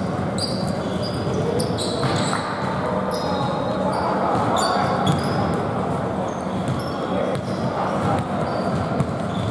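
Basketball game sounds in a large indoor hall: sneakers squeaking in short high chirps throughout, the ball bouncing, and players' voices calling out.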